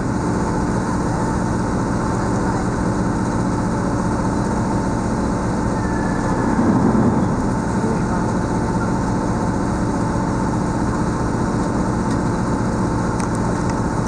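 A boat's engine running steadily underway, a low droning hum that swells briefly about seven seconds in.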